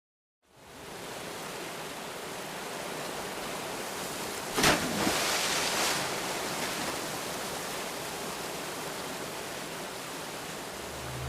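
Steady rushing noise from a sound-effect ambience bed, fading in at the start. A sharp hit about four and a half seconds in is followed by a brief louder rush.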